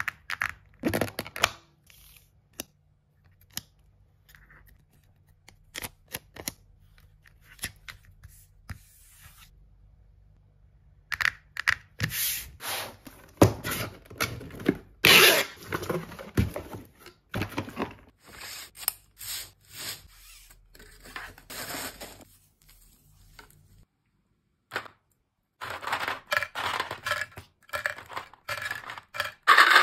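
Close-up handling sounds of packing an order: a few light taps at first, then a cardboard mailer box being folded and creased into shape with scraping and crackling strokes, and near the end plastic capsule balls clicking against each other and their plastic tray in quick clatters.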